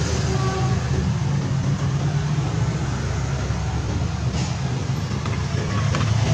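Road traffic: motorcycles and cars passing close by on a city street, with a steady low drone of engines underneath.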